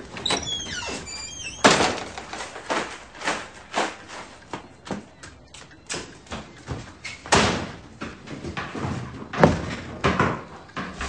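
A series of sharp knocks and thumps at irregular intervals, about one or two a second, with a few short high squeaks near the start.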